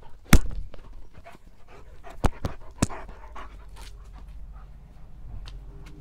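German shepherd panting close by. Three sharp knocks cut through it: a loud one about a third of a second in and two weaker ones a little past two seconds and near three seconds.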